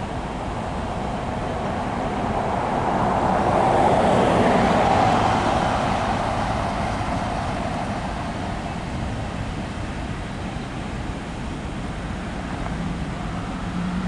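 Freight cars of a slow-moving train rolling past, a steady rumble of wheels on rail that swells louder about four seconds in and then eases back.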